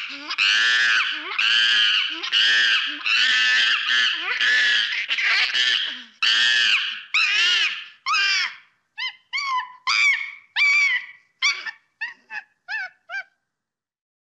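A quick series of loud, high-pitched animal calls, each rising and falling in pitch, about two a second; after about eight seconds they turn shorter and more spaced, and they stop about thirteen seconds in.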